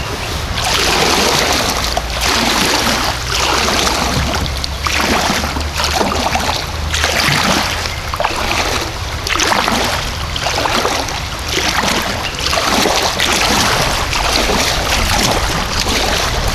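Kayak paddle strokes splashing in a steady rhythm, about one stroke every second or so, over the rushing water of a shallow creek rapid.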